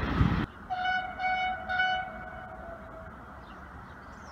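Loud rushing noise that cuts off abruptly about half a second in, followed by three short toots of a train horn, each about a quarter of a second long, with the last one fading away.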